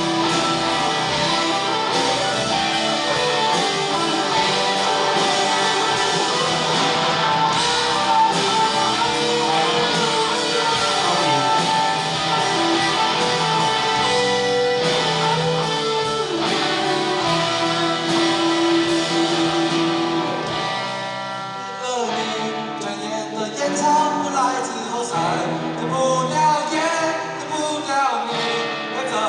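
Live rock band playing: electric guitar over bass and drums, with a male lead vocal. About three quarters of the way through, the full band drops back and the music turns sparser, leaving the voice more exposed.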